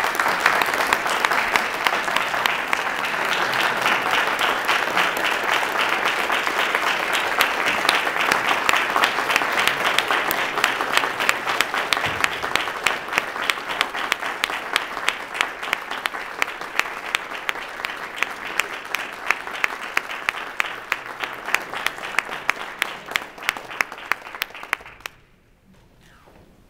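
Audience applauding, a dense clatter of many hands clapping that grows sparser toward the end and stops abruptly shortly before the end.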